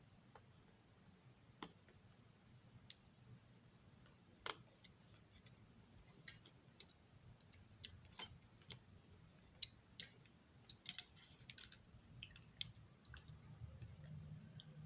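Faint, irregular small clicks and taps of tools and tiny parts being handled during a model railway passenger car repair, over a steady low hum.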